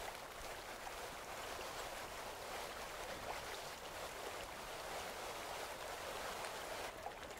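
Shallow river water flowing steadily, a constant rushing hiss.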